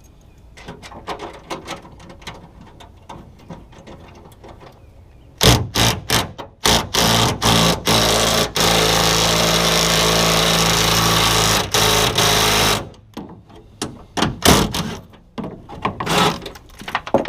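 Cordless drill motor run in several short bursts, then held steadily for about four seconds, after some faint handling clicks; a few knocks follow near the end.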